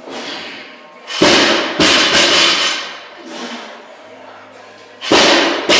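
Loaded barbells with weight plates dropped onto a concrete floor: two heavy thuds close together about a second in, and two more near the end, each ringing briefly.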